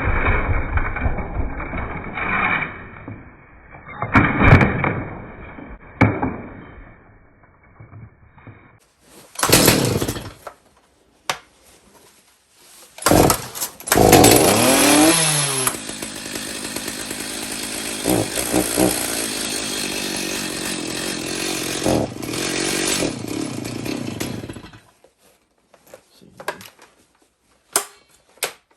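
Stihl MS310 two-stroke chainsaw, with no chain fitted, being pull-started. Several short pulls on the starter cord come first. About halfway through the engine catches, revs up and down, runs steadily for about ten seconds and then stops.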